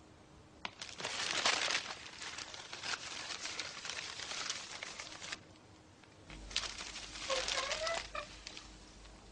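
Heap of newspapers rustling and crinkling as something moves in it, in two stretches. Near the end a black cat hidden in the pile meows briefly.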